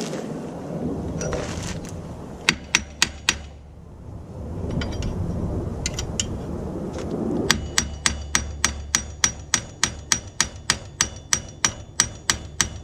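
Hammer blows ringing on steel bolts: a quick run of four strikes, a few lighter taps, then a long even run of about three to four blows a second. This is the knocking out of stubborn strut-mounting bolts, which are held tight by thread locker.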